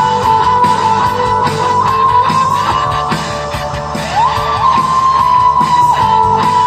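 Rock music with guitars played loud through a pair of bookshelf speakers driven by an Aiyima A07 MAX (TPA3255) amplifier. A held high note slides up in pitch about four seconds in.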